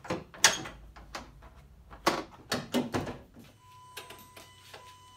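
Jeep Wrangler JK hood being closed: the metal prop rod stowed and the hood lowered and latched, heard as a run of sharp clicks and knocks, the loudest about half a second in and several more around two to three seconds in. A faint steady high tone comes in about two-thirds of the way through.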